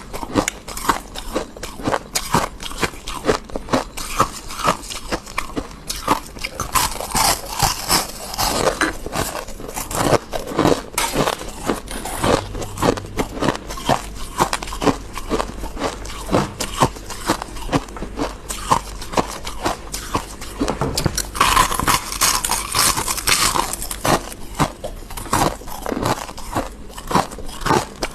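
Close-miked biting and chewing of squeaky freezer frost: a dense, uneven run of crunches and squeaks, with longer hissing crunches at about 8 seconds in and again at about 22 seconds.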